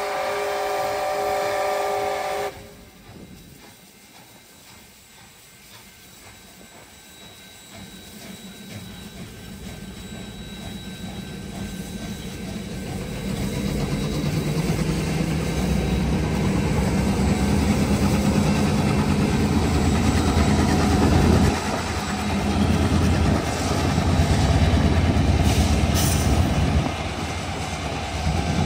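A train whistle sounding a chord of several notes cuts off about two and a half seconds in. After a quieter stretch, the Canadian Pacific 2816 steam train's rumble grows louder as it approaches and stays loud through most of the second half as it runs past.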